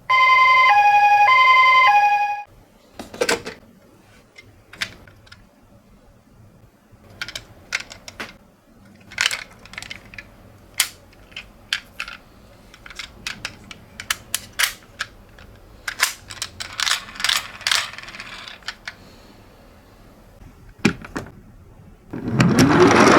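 Toy ambulance minicar's electronic two-tone siren alternating between two pitches, which cuts off after about two and a half seconds. Then scattered light clicks and knocks, irregular and sometimes in quick clusters.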